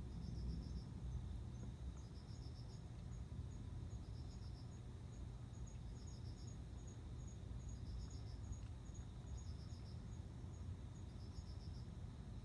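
Male cricket chirping: short chirps of several quick pulses, repeating about every two seconds, with fainter single ticks between them. This is the male's song to draw a female, over a steady low background rumble.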